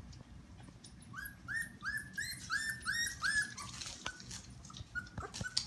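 Four-week-old goldendoodle puppies whining: a run of short, high-pitched squeals, about three a second, starting about a second in and easing after about three and a half seconds, then a few fainter whimpers. A few light clicks are scattered through.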